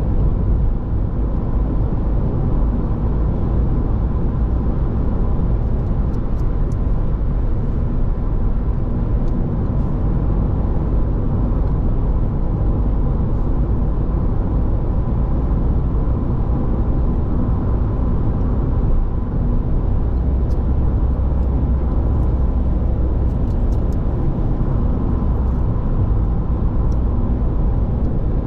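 A car driving along a city road: steady tyre and engine rumble with a faint steady high tone, and no change in level throughout.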